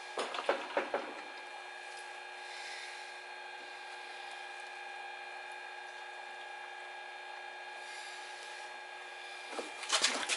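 Knocking and rubbing as a small inverter generator is tipped and handled to drain its oil, in two short spells near the start and near the end. A steady faint hum runs underneath.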